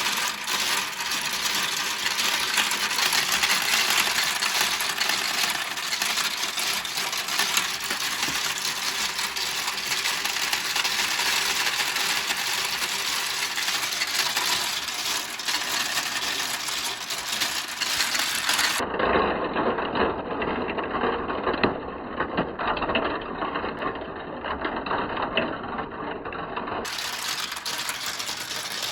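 Many marbles rolling and clattering down a plastic Kumikumi Slope marble run, a dense continuous rattle of small clicks. About two-thirds in, the rattle turns duller for several seconds, then brightens again near the end.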